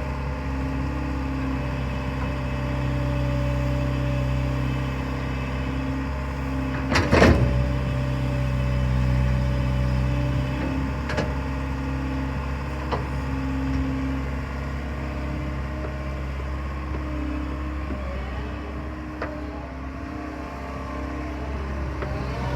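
Diesel engine of a 2005 Liebherr A316 Litronic wheeled excavator running steadily, its note shifting slightly in load. A loud sharp clank comes about seven seconds in, with a few lighter clicks later.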